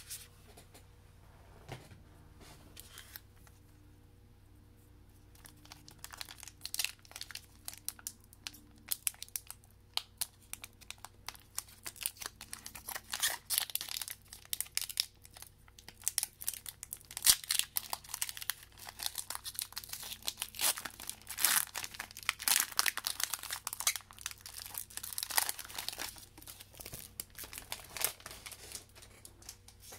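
Foil Pokémon booster pack wrapper being torn open and crinkled in the hands: a dense run of sharp crackles that starts sparse and grows busy a few seconds in.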